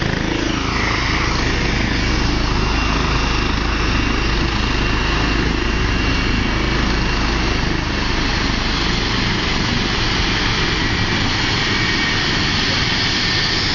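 Helicopter running close by: a steady, loud rush of rotor and engine noise with a thin, steady high whine on top.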